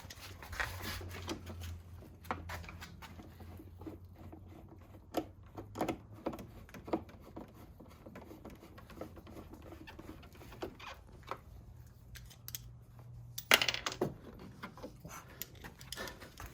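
Scattered clicks and knocks of hand tools, bolts and parts being handled while components are refitted in a car's engine bay, with a louder clatter about three-quarters of the way through.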